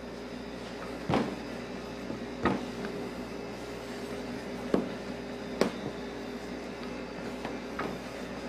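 Wooden rolling pin rolling out puff pastry on a stainless-steel counter, with four sharp knocks of the pin against the steel, over a steady background hum.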